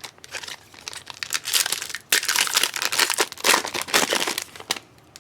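A trading-card pack's wrapper crinkling as the pack is opened: a dense run of rustling with a short break about two seconds in.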